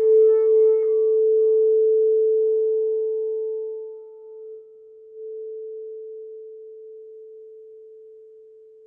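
Singing bowl ringing after a strike, one clear tone slowly fading away; its higher overtones die out within the first second, and the tone swells again briefly about five seconds in.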